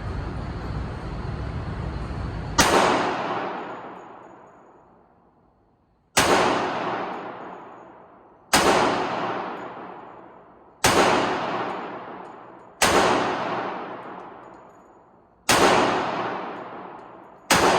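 Seven single shots from an Auto-Ordnance 1911 .45 ACP pistol, fired slowly about two to three seconds apart, each ringing out and dying away before the next. A steady rumbling noise fills the first couple of seconds, before the first shot.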